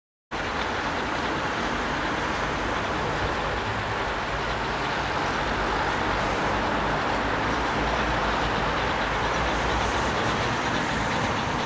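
Steam train running on the line: a steady rush of locomotive and carriage noise with low rumble, cutting in suddenly just after the start.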